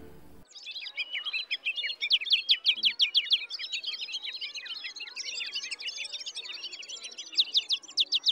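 Birds chirping in a dense run of short, quick, downward-sweeping high chirps, loudest about two to three seconds in and again near the end.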